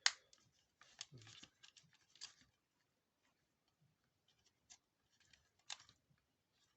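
Faint handling noise from a small plastic clamp meter and its test leads: a sharp click at the start, a quick run of clicks and rustles over the next couple of seconds, then a few scattered clicks.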